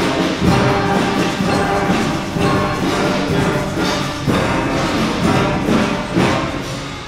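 Beginner concert band of flutes, clarinets, saxophones, brass and percussion playing a piece together, sustained chords with drum strokes about every two seconds. The sound tapers off near the end.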